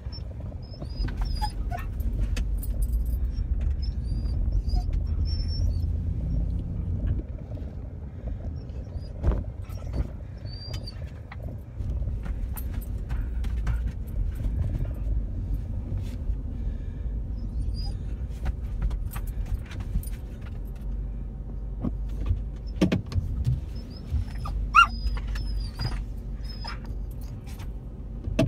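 Inside a moving car: steady low engine and road rumble as it drives slowly, with a dog's faint high-pitched whines now and then, growing clearer near the end. The border collie mix is whining with excitement at arriving at the dog park.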